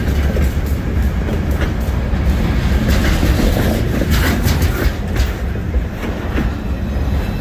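Freight train cars rolling past close by: a steady low rumble with irregular clicks and clanks of wheels over the rail joints.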